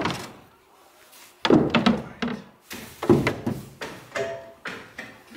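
Dull thunks and knocks on a fibreglass sailboat hull, about half a dozen spread out, the loudest about one and a half and three seconds in: people climbing aboard and moving about inside.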